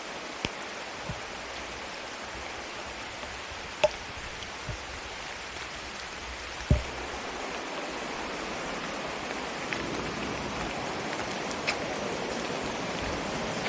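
Steady rain, with a few large drops striking close by as sharp taps, the loudest about four seconds in and just under seven seconds in.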